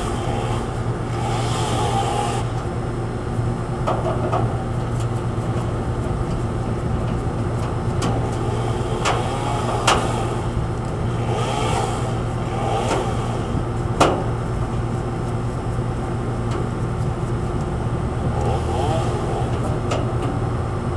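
Steady low machinery hum, with short grating squeaks every few seconds as sheet-metal screws are backed out of an air-conditioner condenser's top panel with a nut driver, and a few sharp metal clicks.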